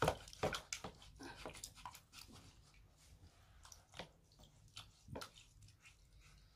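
Water splashing and sloshing in a plastic foot basin as hands rub and wash the feet in it, in short irregular splashes.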